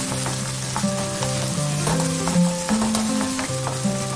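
Raw shrimps and chopped garlic sizzling in hot oil in a wok, stirred with a wooden spatula, with a steady hiss and small crackles. Background music plays over it.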